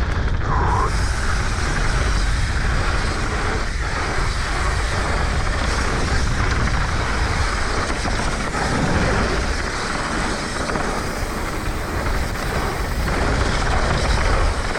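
Steady rush of wind buffeting an action camera's microphone, mixed with the rolling noise and rattle of a mountain bike's tyres on a dirt trail at speed.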